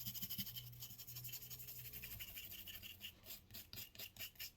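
A cleaning brush scrubbing the steel frame of a Rock Island M200 .38 Special revolver: faint, quick back-and-forth scratching strokes, about five a second, clearest in the second half.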